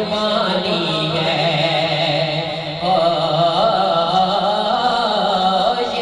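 Male voice singing a naat: a long melismatic line that wavers and quavers in pitch, with a steady low hum held beneath it.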